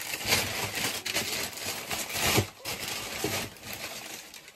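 Wrapping on a pair of new sneakers rustling and crinkling as it is pulled off by hand, in an irregular run of crackles that tails off near the end.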